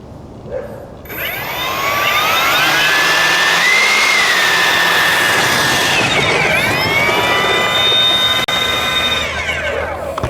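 Two Dr. Mad Thrust 80 mm electric ducted fans on an RC Boeing 737-300 model being run up: a whine that spools up from about a second in and rises in pitch. It eases back around the middle, spools up again to a steady high whine, then winds down near the end.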